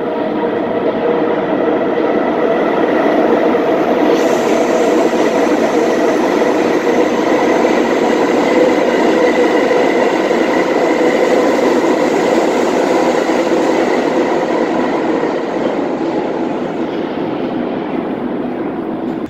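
New York City subway train running past on a far track in an underground station: a loud, steady rumble and whine that builds over the first few seconds and fades away near the end.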